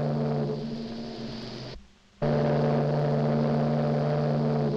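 Ocean liner's steam whistle blowing, a chord of steady low tones. One blast trails off, then after a brief silence a second, longer blast starts about two seconds in.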